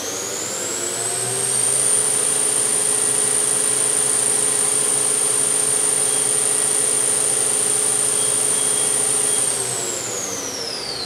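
Spindle of a 2012 Southwestern Industries Trak LPM vertical machining center speeding up to its maximum 8,000 RPM. It makes a high whine that rises over the first two seconds and holds steady. From about nine and a half seconds in it falls away as the spindle brake slows it.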